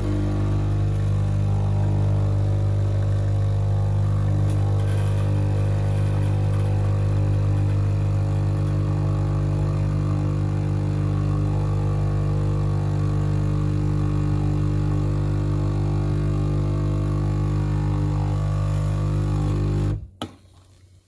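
Breville Dual Boiler BES920 espresso machine's vibratory pump humming steadily while it pulls an espresso shot. The pump cuts off suddenly about a second before the end as the shot finishes, followed by a single brief knock.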